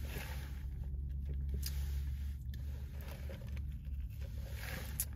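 Someone quietly sipping an unsweetened iced green tea and handling the drink, with scattered small clicks and scrapes over a steady low hum.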